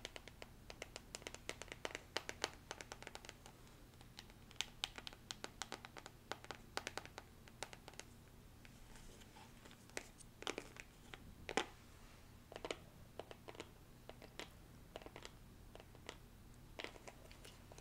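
Long fingernails tapping and scratching on a small printed box, in quick flurries of sharp clicks for the first several seconds, then in slower, scattered taps with short pauses.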